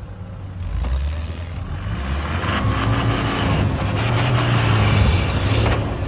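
Toyota Hilux pickup's engine revving under load, rising in pitch and then easing, as it climbs through snow and mud. Over it is a steady rushing noise of spinning tyres throwing up slush and mud, which grows louder through the middle of the stretch.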